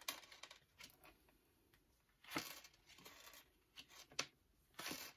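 Faint handling of paper tarot cards: a few soft slides and taps as a card is drawn from the deck and laid on the table.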